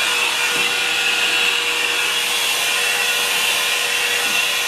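Hot-air round brush (a hair dryer with a bristle brush attachment) running steadily while brushing through hair: a constant rush of blown air over a steady motor hum.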